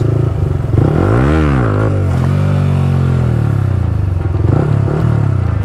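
Yamaha R15M's 155 cc single-cylinder engine running under way. About a second in it revs up quickly and drops straight back, then its note falls gradually as the bike slows, and it settles to a steady note.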